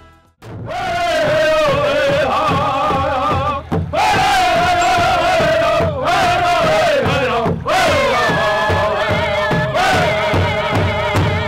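Powwow drum group singing: several men chant high, wavering lines in unison while beating a large shared powwow drum with padded sticks in a steady rhythm. The song comes in about half a second in, with short breaks between phrases.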